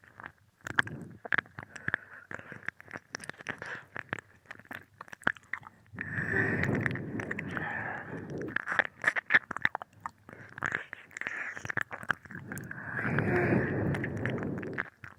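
Ear-licking mouth sounds into a binaural microphone: wet clicks and smacks throughout, with two longer, denser stretches of licking about six and thirteen seconds in.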